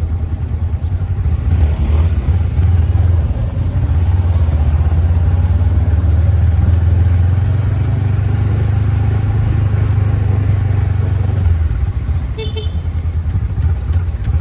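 Steady low rumble of a motor vehicle running, with a short high beep about twelve seconds in.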